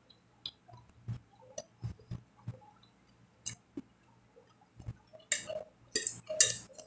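A person eating close to the microphone: chewing with scattered small mouth clicks and soft taps, then a short run of louder, sharper chewing noises about five seconds in.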